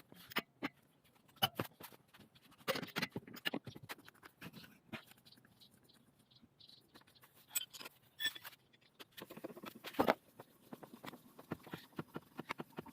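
Scattered clicks and short knocks of hand tools on metal parts while a car's front wheel and brake caliper are taken off to change the brake pads. The knocks are loudest about three seconds in and again about ten seconds in.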